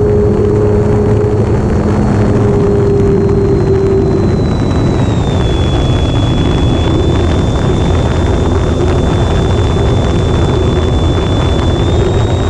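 Wind noise on the microphone, loud throughout, with the high, steady whine of an electric RC plane's motor running under it. The whine's pitch dips a little about five seconds in and rises again near the end.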